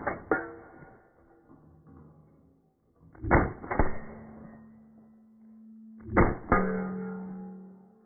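Pistol-caliber carbine shots in quick pairs about half a second apart, a pair roughly every three seconds. A steady ringing tone lingers between the pairs.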